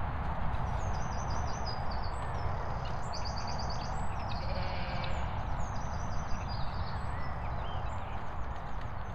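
Footsteps swishing through grass under a steady low rumble of wind on the microphone, with several short bursts of high, rapid twittering bird calls.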